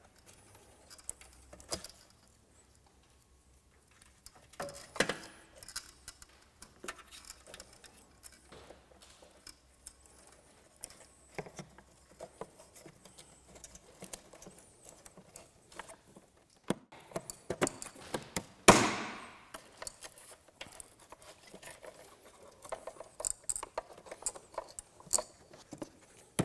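Hands handling wiring and plastic parts in a car's engine bay beside the fuse box and battery: scattered small clicks, taps and rustles, with one loud sharp knock about two-thirds of the way through.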